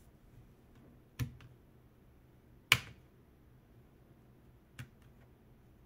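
Three sharp, separate clicks, the middle one loudest.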